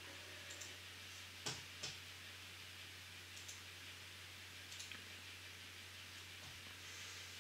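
A few faint, scattered clicks of a laptop's keys and touchpad being pressed, the two loudest close together about a second and a half in, over a low steady hum.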